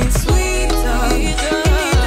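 Background music: a melody over a deep, steady bass and a drum beat.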